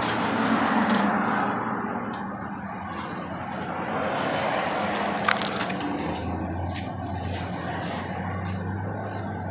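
A wrench working on a stuck oil-pan drain bolt: scattered metal clicks and one sharp crack about five seconds in, over steady background noise. A low steady hum joins past the middle.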